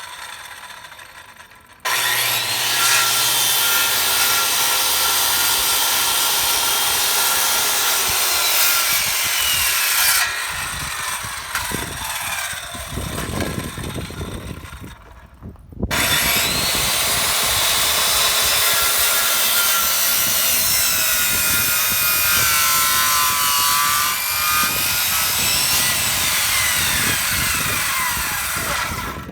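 Circular saw cutting through rough-cut lumber for rafter notches. It starts suddenly about two seconds in and runs through a long cut, then drops quieter and stops briefly past the middle. A second long cut follows, with the motor's whine sliding in pitch as it loads.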